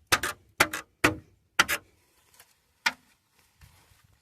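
Plastic wheel cover's clips snapping onto the wheel as it is pressed on around the rim: five sharp snaps in under three seconds, the last after a short pause.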